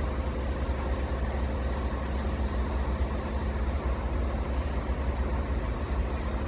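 Steady drone of a diesel train engine running at idle, with a low rumble underneath and no change in pitch.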